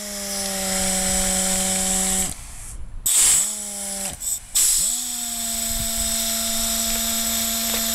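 ARO half-ton pneumatic chain hoist's air motor running, a steady whine over hissing exhaust air, as the load chain and hook travel. It stops about two seconds in, gives a short burst a second later, then starts again about five seconds in and runs steadily.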